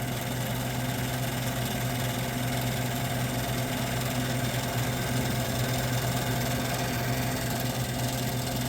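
1978 Gibson Air Sweep 5900 BTU window air conditioner running steadily: a constant hum from its reciprocating compressor and fan motor. Its condenser fan is out of balance and rubbing against its shroud, according to the owner.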